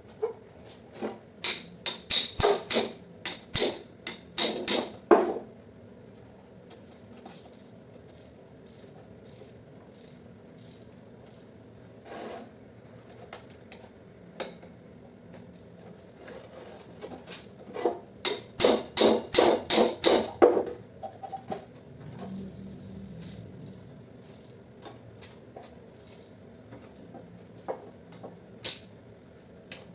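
Hammer striking metal in two runs of quick blows, about three or four a second. The first run comes near the start and the second past the middle, each lasting three to four seconds.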